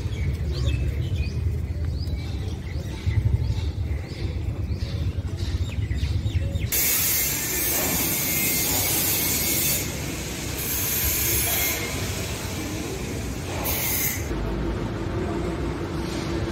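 Low rumble with short, repeated high chirps, like small birds. About seven seconds in, a loud steady hiss starts abruptly and then cuts out and restarts several times, and a steady low hum comes in near the end.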